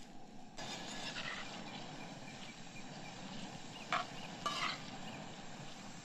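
Chopped onions sizzling in oil in a wide black pan, the sizzle stepping up about half a second in. Two short, sharp calls, the loudest sounds here, come about four seconds in, half a second apart.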